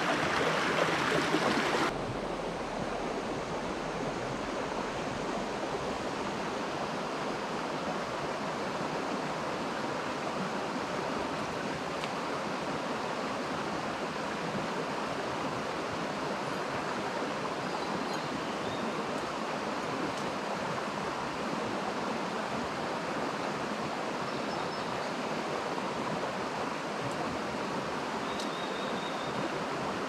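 Small rocky mountain stream flowing over stones: a steady rush of water, louder for about the first two seconds, then slightly quieter and even.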